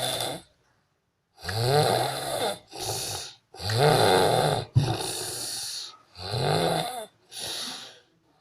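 A sleeping person snoring: six rasping snores in quick succession, falling into three pairs of a longer snore and a shorter one.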